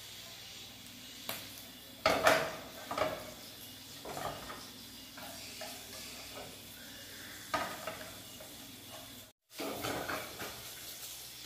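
Cooking at a gas stove: a utensil stirring and scraping in a frying pan over a steady sizzle, with metal pans clattering several times.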